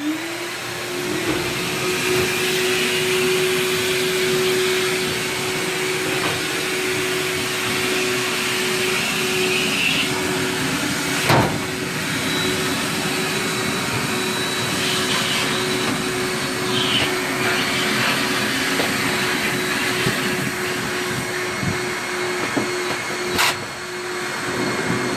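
Ductmaster 3 duct-cleaning machine's vacuum motors, two of its four running, switching on and spinning up quickly, then running steadily with a loud whine and rushing air. Two sharp knocks sound over it, about halfway through and near the end.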